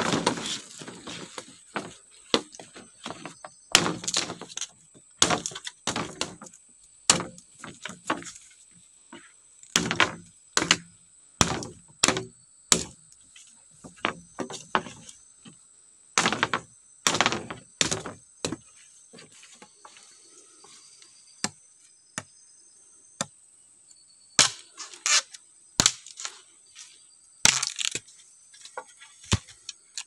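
Machete chopping and splitting green bamboo poles: irregular sharp whacks and cracks, some longer and crackling as the bamboo splits, in runs with short pauses between them. A faint steady high whine runs underneath.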